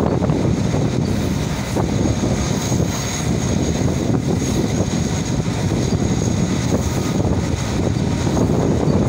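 Pakistan Railways HGMU-30 diesel-electric locomotive running at speed, its engine drone mixed with wheels rolling on the rails, heard from alongside the locomotive on the moving train. The noise stays steady throughout, with a faint high whine above it.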